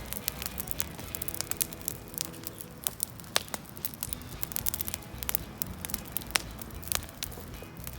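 Wood fire crackling and popping as a heap of fresh green leaves burns, sharp irregular snaps over a steady hiss, with a few louder cracks about three and six seconds in. The leaves are burning readily, which the burner puts down to a plant with oily leaves.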